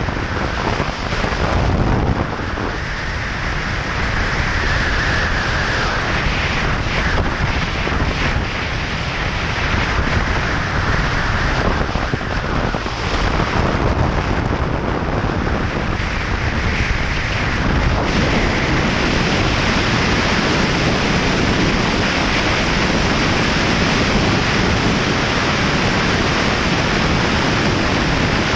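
Steady wind rushing over the camera microphone of a moving motorcycle, a BMW R 1200 GS, with road noise mixed in; the wind covers any engine sound.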